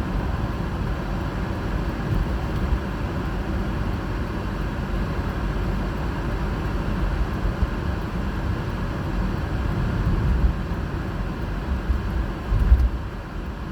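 Storm wind rumbling on the microphone, a steady low roar that rises in gusts, strongest about ten seconds in and again near the end.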